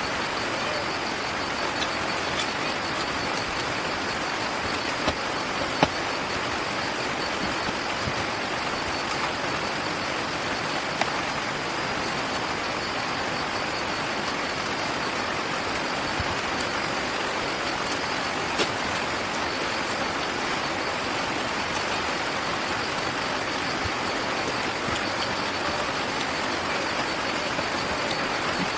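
Steady hiss-like background noise, like rain or distant traffic, with a few faint clicks about five to six seconds in and again past the middle.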